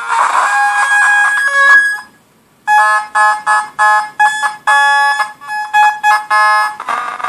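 Ciat-Lonbarde Grassi organ on a Meng Qi circuit board, played by fingers touching the bare board: buzzy electronic organ tones. A held chord lasts about two seconds, then after a brief pause comes a run of short staccato stabs, about three a second.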